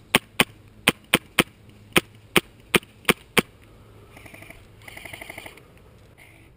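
Custom VFC M27-bodied airsoft rifle with a Protech Mk2.5 firing single shots: eleven sharp cracks at uneven spacing over the first three and a half seconds. A quieter rapid rattle follows a little past halfway.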